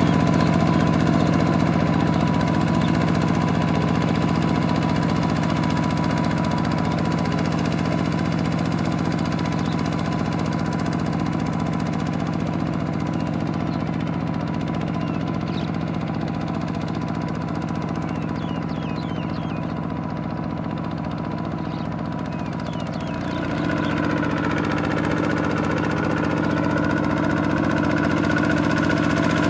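Two-wheel walking tractor's single-cylinder diesel engine running steadily while ploughing a flooded rice paddy. It fades slowly, then is louder again from about 23 seconds in.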